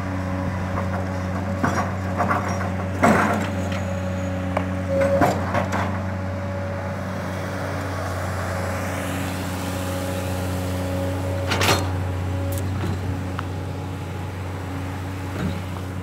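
Hydraulic excavator's diesel engine running steadily while it digs and loads soil, with irregular sharp knocks and clatter from the bucket and clumps of soil, loudest about three seconds and twelve seconds in.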